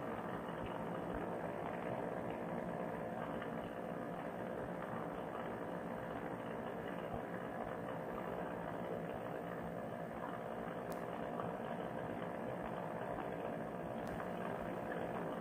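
Paramotor trike's engine and propeller running steadily in flight, an even drone that holds the same pitch throughout.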